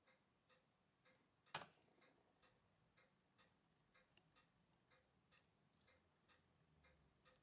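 Faint, steady ticking at about two ticks a second, with one sharper, louder click about a second and a half in.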